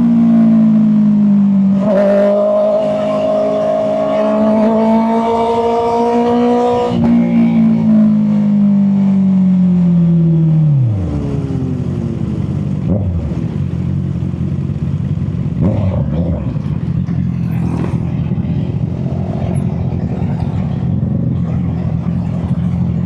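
Honda CB650R inline-four engine heard on the move. Its note holds high, then falls away steeply about eleven seconds in as the revs drop, leaving a quieter, steady lower running note.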